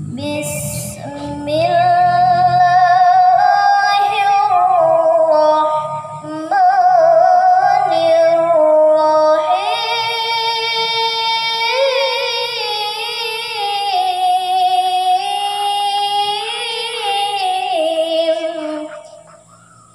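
A young girl reciting the Qur'an in a melodic chant (ngaji), holding long notes with ornamented turns, into a handheld karaoke microphone. The phrase breaks briefly for breath about six seconds in, and the voice trails off near the end.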